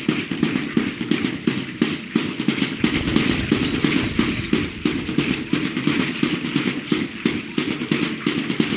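Aztec dance: a quick, steady beat of many rapid strikes, with the dancers' seed-pod ankle rattles (ayoyotes) shaking along to their steps.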